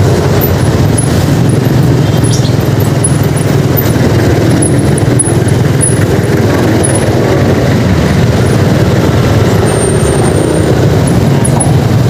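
Motorcycle engine running with road and traffic noise, heard from the rider's own bike as it moves slowly through heavy city traffic. A steady low rumble throughout.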